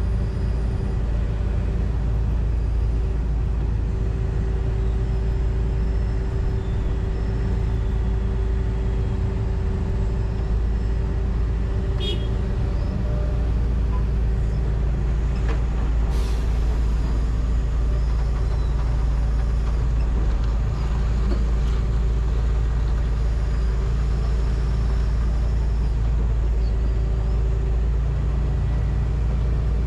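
John Deere 245G excavator's diesel engine running steadily under working load, heard from inside the cab. Two short, sharp noises cut through near the middle.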